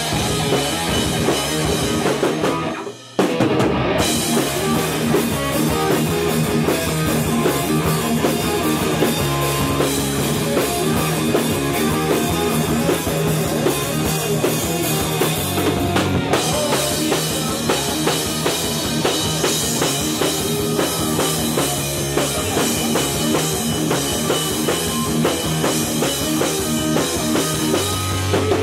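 Heavy metal band playing live in a rehearsal room: electric guitars, bass guitar and drum kit together. The whole band stops dead for a moment about three seconds in and comes back in, with another brief break near the middle.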